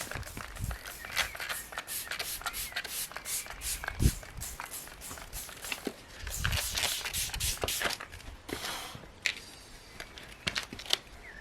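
2000-grit sandpaper on a sanding block rubbed over a car's wet painted wing by hand: wet sanding down a touched-up scratch, in many quick short strokes, with a single louder knock about four seconds in.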